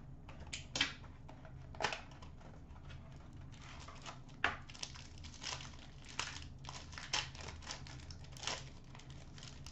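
A hockey trading-card pack's wrapper being slit open and crinkled as the cards are pulled out: a string of short, crisp crackles and rustles over a low hum.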